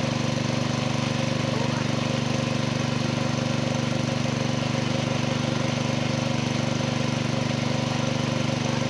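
A small engine running steadily, with a fast, even pulse and a constant low drone.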